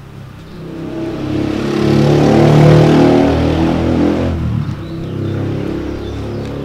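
A motor vehicle's engine passing close by, swelling to a peak about two and a half seconds in, then dropping in pitch and fading.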